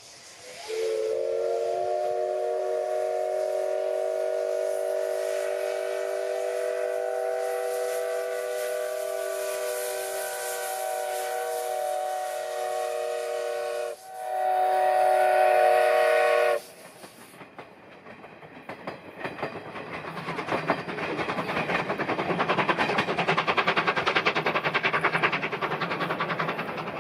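Steam whistle of the Japanese class C12 tank locomotive C12-66, sounding several tones at once: one long blast of about thirteen seconds, then a shorter, louder blast. The steam train then comes closer, and the noise of the locomotive and coaches on the rails rises and stays loud near the end.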